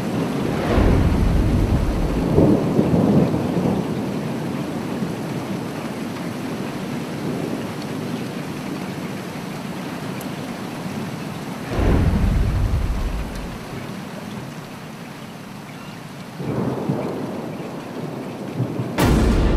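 Thunderstorm: steady rain with thunder rolling three times, about a second in, around twelve seconds and around sixteen seconds, then a sharp thunderclap near the end.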